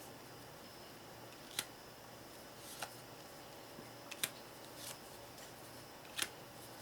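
Playing cards being handled and laid down one at a time: a few short, sharp card snaps a second or two apart, over a faint steady hum.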